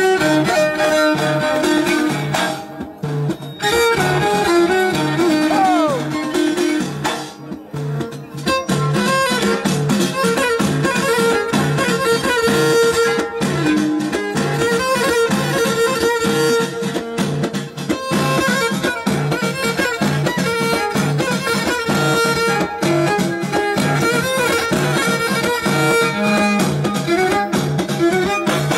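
Live Middle Atlas Amazigh folk music: a violin, bowed upright on the knee, leads the tune over bendir frame drums beating a steady rhythm.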